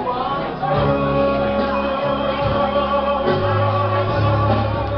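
Gospel music with singing: held sung notes over a steady bass line, in a large reverberant room.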